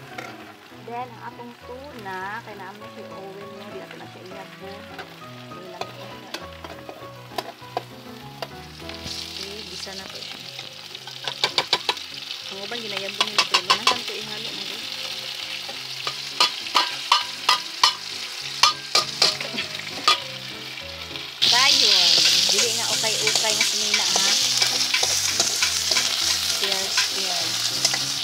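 Canned tuna flakes frying in oil in a steel pan, a metal spoon stirring and tapping against the pan and can. The sizzle builds a third of the way in, with a run of sharp clicks, then jumps suddenly louder about two-thirds through. Quiet background music underneath, plainest at the start.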